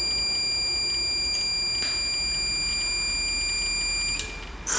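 EZhit induction heater running while heating a steel bolt inside its coil, giving a steady high-pitched whine with a faint low hum. The whine cuts off suddenly about four seconds in when the heater stops.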